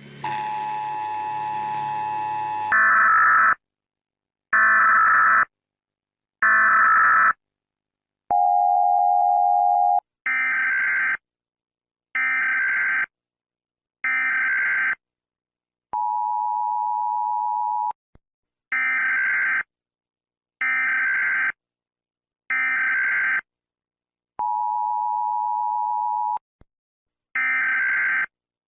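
Emergency Alert System signal tones: groups of three short buzzy data bursts, each about a second long, every group followed by a two-second steady lower alert tone, the pattern repeating several times.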